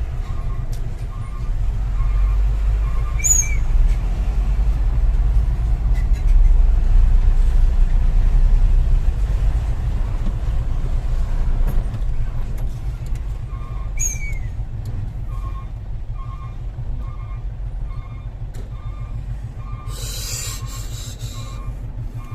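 Heavy diesel dump truck running, its engine louder for several seconds in the first half, with a reversing beeper sounding in a steady rhythm at the start and again from about two-thirds of the way in. Two short brake squeals, and a burst of air-brake hiss lasting over a second near the end.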